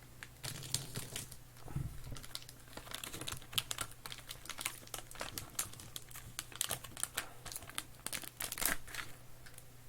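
Trading card pack wrapper being crinkled and torn open by hand, a long run of irregular crackles.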